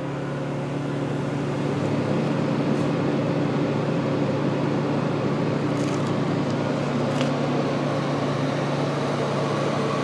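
A Frigidaire 12,000 BTU window air conditioner humming steadily on cool while drawing its power from a Honda eu2000i inverter generator. The generator cannot carry the load and goes into overload.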